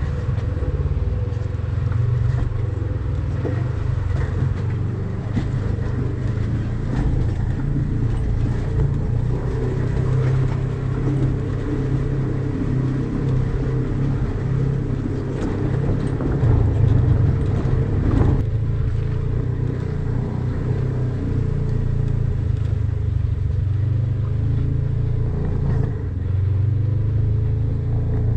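Polaris RZR side-by-side running steadily over a rough, rocky trail, its engine a low steady drone, with occasional knocks and rattles from the chassis over rocks.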